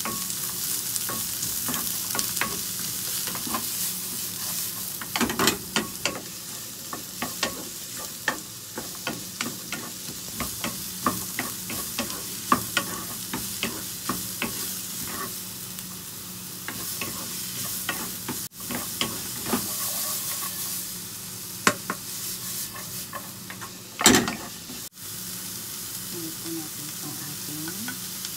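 Chopped onion sizzling in hot oil in a frying pan while a wooden spatula stirs it, with many short taps and scrapes of the spatula against the pan over a steady hiss. One louder knock comes near the end.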